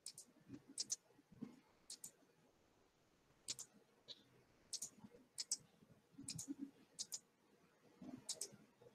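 Faint computer mouse clicking: quick double clicks at irregular gaps of about half a second to a second and a half.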